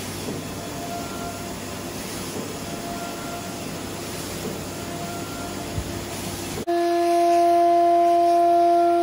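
A steady noisy machine hum with a faint tone pulsing about every second and a half. About seven seconds in, it cuts to the louder, steady multi-tone whine of a Kimla CNC router's spindle milling 8 mm 5754 aluminium plate with a 6 mm single-flute cutter in a single pass.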